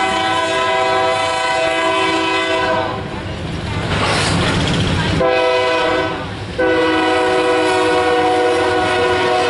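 Locomotive air horn blowing two long blasts with a break of about two seconds between them, over the rumble of loaded coal hopper cars rolling past on the rails.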